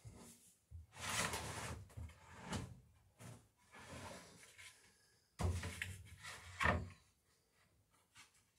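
Long wooden garboard plank pieces being shifted on a shop floor: a scraping slide of wood about a second in, smaller rubs, then a heavy knock and a sharper knock as the planks are set down and butted together.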